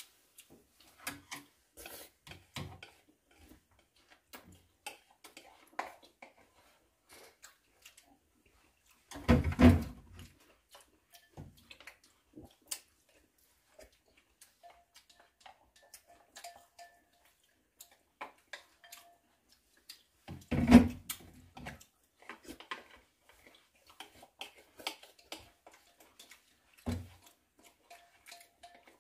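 Quiet eating sounds: spoons clicking lightly and irregularly against lacquered wooden bowls while porridge is eaten, with two louder, fuller sounds about a third of the way in and again about two-thirds in.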